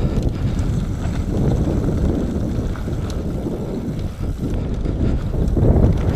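Nukeproof Mega 275 enduro mountain bike descending a dirt forest trail at speed: wind rushing over the camera microphone, mixed with tyre noise on loose dirt and small clicks from the bike.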